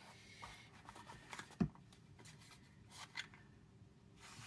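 Paper-craft handling on a tabletop: light rustles and clicks of paper and card being handled, with one dull thump about a second and a half in, as of an object set down on the table, and a brief rustle near the end.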